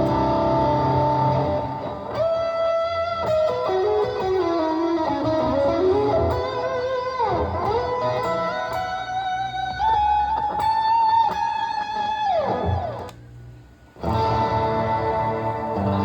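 Electric guitar played through a Valeton GP-200LT multi-effects processor: ringing chords, then a single-note lead with string bends and long sustained notes. The playing stops briefly about 13 seconds in, and chords start again.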